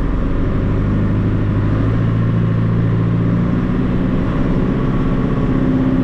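John Deere 2755 tractor's four-cylinder diesel engine running, heard from inside the cab, its pitch stepping up twice as the engine speeds up while the tractor is driven.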